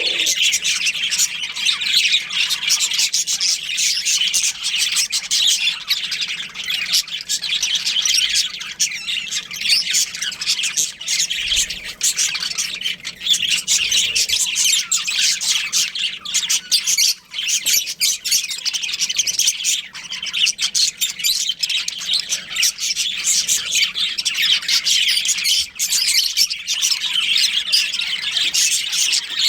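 A colony of budgerigars chirping, many birds at once in a dense, continuous chorus.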